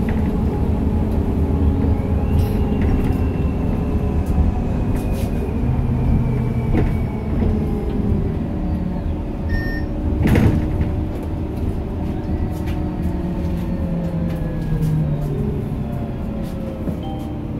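Solaris Urbino 12 CNG city bus heard from inside the passenger cabin while driving: a steady low rumble of the compressed-natural-gas engine and drivetrain, with whining tones that slowly rise and fall in pitch as the bus changes speed. A single sharp knock sounds about ten seconds in.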